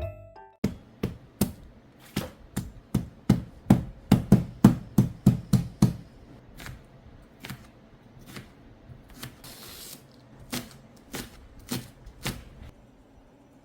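A kitchen knife chopping cucumber on a cutting board: a quick run of sharp knocks, about three a second, that grows louder, then stops about six seconds in and gives way to slower, quieter single chops.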